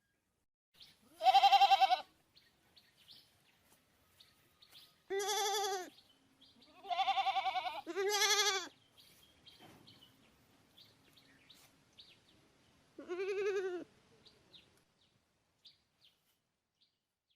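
Goat bleating five times, each a wavering call of under a second, the first the loudest.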